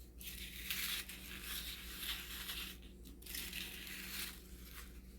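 Dry, coarse craft sand being poured and worked into a boat mold: a gritty rustling hiss in two long stretches with a brief break about three seconds in.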